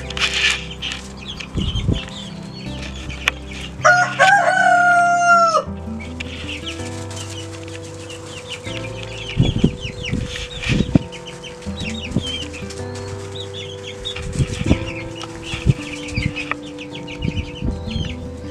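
Young chickens peeping and chirping on and off, with a rooster crowing once, about four seconds in, a long call held steady and dropping at the end. Soft background music with slow held notes runs underneath.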